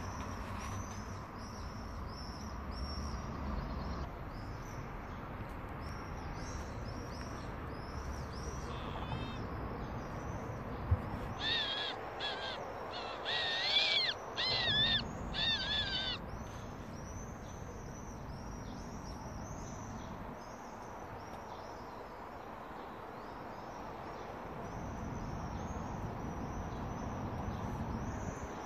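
Small birds chirping over and over in the background. Midway through comes a run of loud, high, squeaky calls from a Eurasian eagle owl lasting about four seconds, just after a single sharp click.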